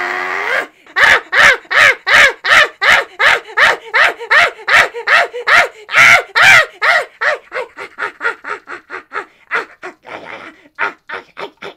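A puppeteer's voice giving a long run of short, harsh yells, about two to three a second, in rhythm with repeated scissor stabs. It opens with a short held cry, and after about seven seconds the yells come quicker and fainter.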